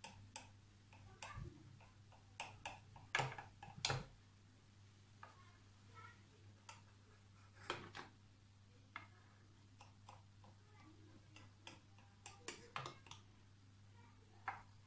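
Knife tapping and clicking against a glass baking dish while a chilled custard-and-biscuit cake is sliced: scattered faint sharp clicks, the loudest a few around three to four seconds in, over a low steady hum.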